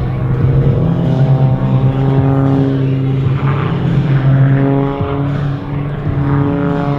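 MXS-RH single-engine aerobatic plane's piston engine and propeller running at high power through aerobatic manoeuvres. Its pitch shifts up and down as the aircraft turns and tumbles.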